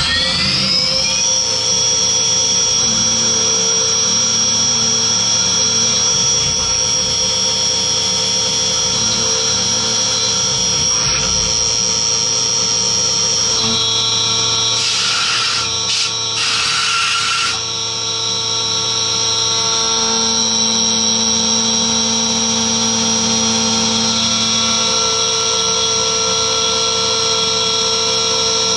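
Skyfire SVM1 CNC mill spindle spinning up, its pitch rising and levelling off about a second in, then running at constant speed with a steady high whine. A rushing hiss joins it for a few seconds midway.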